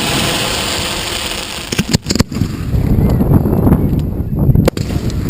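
Fireworks firing at close range: a hiss for the first two seconds, then sharp bangs of shells launching and bursting about two seconds in and near the end, over a continuous low rumble.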